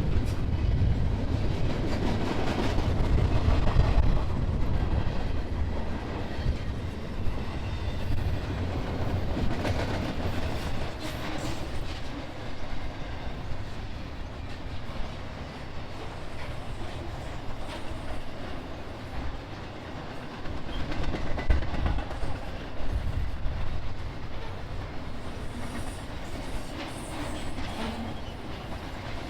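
Freight train cars rolling past: a continuous rumble of wheels on rail with repeated clicks as wheels cross rail joints, a little quieter in the second half.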